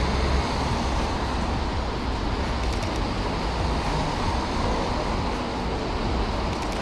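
Steady city street ambience of road traffic: an even noise with a deep rumble and no distinct events.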